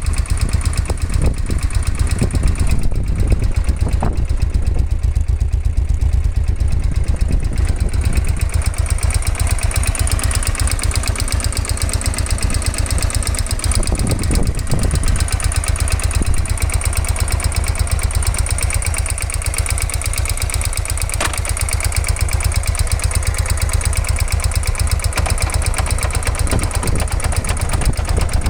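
Suzuki VX 800's V-twin engine running with first gear engaged on the centre stand, a steady fast pulsing, while the shaft drive rattles heavily. The owner suspects too much play, or damage or wear, in the shaft drive's universal joint.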